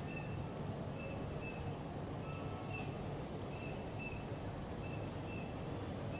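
City bus diesel engines idling in a low, steady rumble, with a bus's electronic warning beeper sounding short high beeps, mostly in pairs, every second or two, as a bus manoeuvres out of its berth.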